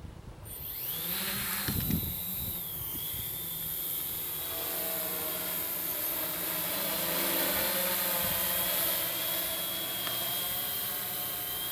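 Tarot 680 Pro hexacopter's six electric motors and propellers spinning up about half a second in, then a steady whirring hum with a high whine as it lifts off and climbs on an autonomous takeoff.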